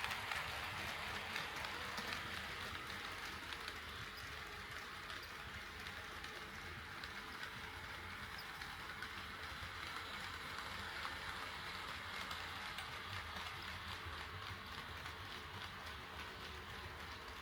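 HO scale model train running on KATO Unitrack: a steady whir of wheels and motor with fine, rapid clicking over the rail joints, slowly fading away.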